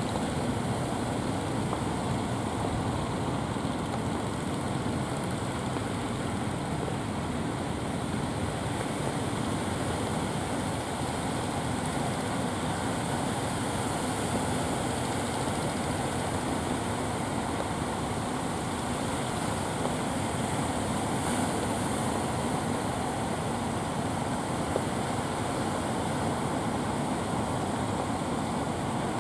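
Steady rumble of surf breaking on the beach, mixed with the motors of outrigger fishing boats coming in towards shore.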